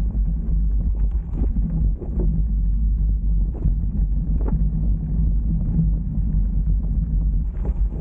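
Wind buffeting an action camera's microphone during a fast mountain-bike descent, a loud steady low rumble, with scattered knocks and rattles from the tyres and bike going over loose stones on a dirt track.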